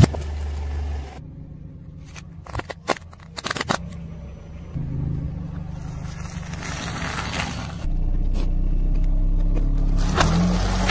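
Car engine running low as a tyre rolls over and crushes objects, with a quick run of sharp cracks and crackles about two to three and a half seconds in. The engine gets louder from about eight seconds in.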